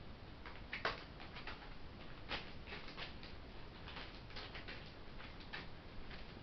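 Juvenile herring gull's feet on a crinkly plastic tarpaulin as it walks: faint, irregular light clicks and crackles, the loudest about a second in.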